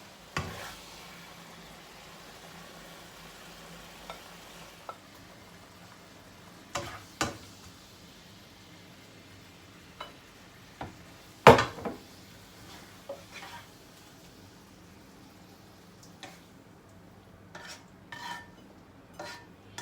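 Metal spatula scraping and knocking against a frying pan while stir-fried chicken with chilies is dished out, with scattered sharp clanks, the loudest about halfway through and a run of quicker clinks near the end. A faint sizzle of hot oil sits underneath.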